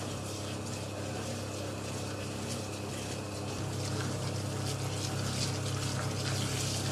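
Steady hum of an electric motor, likely a bakery machine, which gets louder about three and a half seconds in. Over it is the quick rustling hiss of flour being shaken through a hand sieve into a metal bowl.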